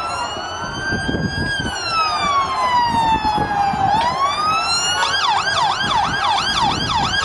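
Police siren sounding a slow rising and falling wail, then switching to a fast yelp about three times a second, about five seconds in.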